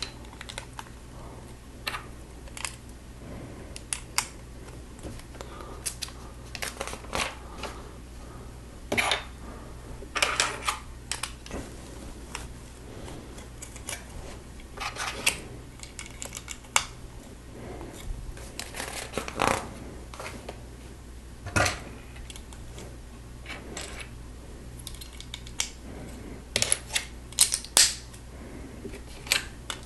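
Plastic Lego bricks being handled and pressed together: irregular clicks and snaps, a few louder ones now and then and a quick cluster near the end, over a steady low hum.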